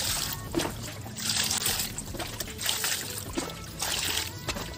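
Water poured from a plastic mug over raw fish pieces in an aluminium bowl, splashing as a hand rubs them clean, in repeated pours of about a second each.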